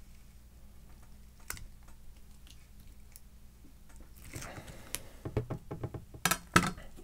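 Block of ballistic gelatin being handled after a knife cut, the cut slab pulled apart from the block and moved on the tabletop. There is a single light click about a second and a half in, then a run of soft knocks and sticky handling noises over the last three seconds, loudest near the end.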